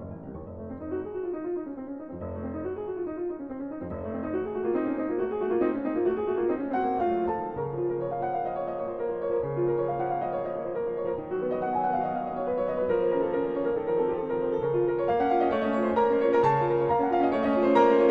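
Background piano music: rippling runs of notes rising and falling, then fuller chords over low bass notes, growing louder toward the end.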